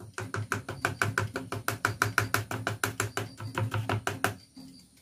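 A plastic mesh sieve being tapped and shaken to sift flour and cocoa into a bowl: a rapid, even run of taps that stops about four seconds in.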